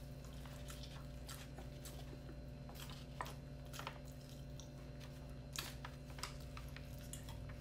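A person chewing a mouthful of fish and rice eaten by hand, with scattered small wet clicks, over a low steady hum.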